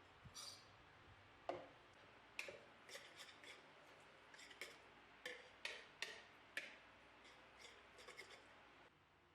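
A run of faint, irregular light clicks and taps, as of small objects being handled and set down, stopping shortly before the end.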